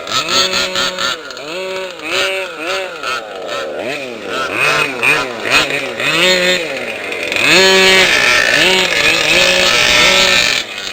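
Small two-stroke engine of a gas-powered large-scale RC car revving up and down in quick throttle blips, then held at high revs for a few seconds before cutting off suddenly near the end.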